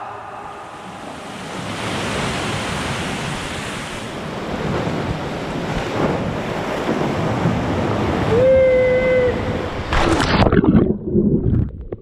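Seawater surging and splashing around a swimmer among concrete pier pillars, with wind on the action camera's microphone. About eight seconds in, a short held vocal note. Near the end a burst of splashing, and the sound turns muffled as the camera goes under water.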